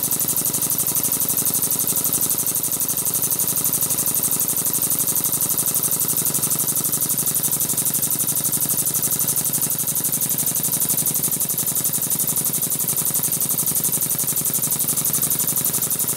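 Small brass oscillating-cylinder model steam engine running on compressed air: a fast, even beat of exhaust puffs and hiss with light mechanical clatter from the cylinder and crank. The engine is newly assembled and still maybe a little stiff, which should free up as it runs in.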